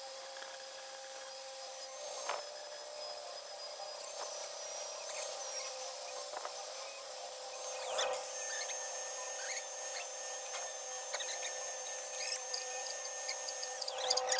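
Electric angle grinder cutting steel, a steady whine with a few sharp metal clicks.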